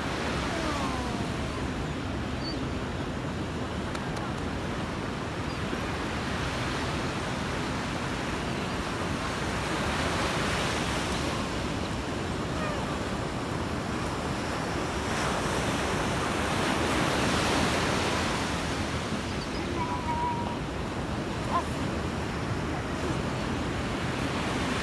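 Sea surf: waves breaking and washing in, a steady rushing noise that swells louder twice, near the middle and about two-thirds through.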